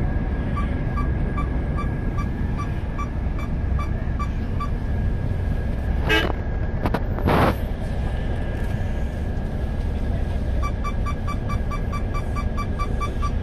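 Bus engine running, heard inside the cabin as a steady low rumble, with an electronic beep repeating about two to three times a second that stops a few seconds in and starts again near the end. About six seconds in there is a short horn toot, then a brief hiss.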